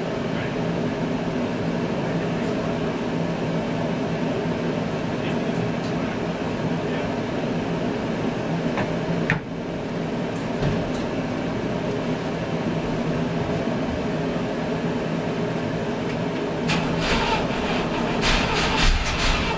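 A 401 Nailhead V8 in a 1961 Buick runs steadily with an even hum that dips briefly about nine seconds in. Rougher, rattling noise joins in over the last few seconds.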